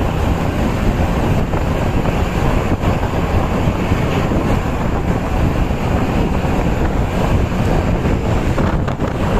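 Steady, loud wind buffeting the microphone over vehicle noise, with no horn melody sounding.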